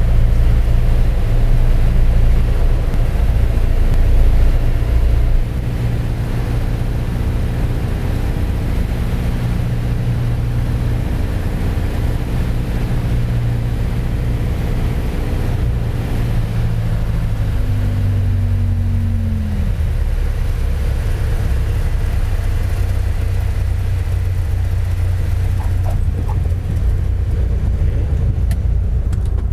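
Piper PA-28's 180 hp four-cylinder piston engine heard from inside the cockpit, running at approach power and then dropping to a lower, steady idle about five seconds in as the throttle is closed for the landing. It keeps idling through the roll-out along the runway, with a brief falling tone partway through.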